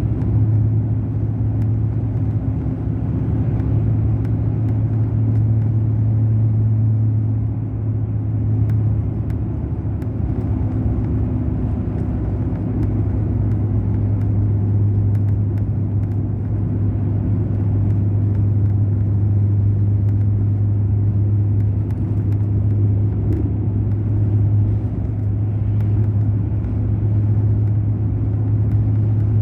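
Mercedes-Benz O500 RSD BlueTec5 coach's diesel engine running at a steady pace, a low, even drone with road noise over it.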